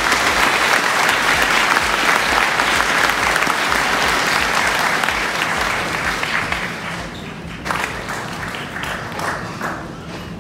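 Audience applauding, thinning after about seven seconds to scattered individual claps.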